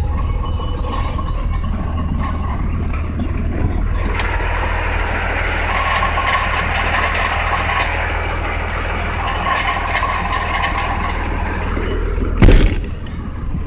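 Vehicle engine running steadily with a noise the owner calls bad, and one sudden loud knock near the end.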